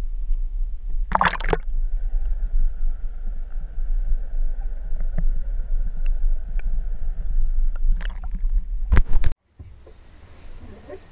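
An action camera plunging into seawater with a splash, followed by a muffled underwater rumble and gurgling with a faint steady high whine. A couple of sharp splashes or knocks come near the end, then the sound cuts abruptly to a much quieter ambience.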